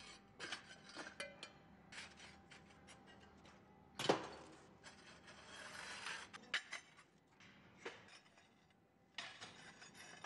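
Fired clay roof tiles clinking and knocking against one another as they are handled and stacked by hand into a crate. There is a quick irregular run of light clinks, with one louder knock about four seconds in.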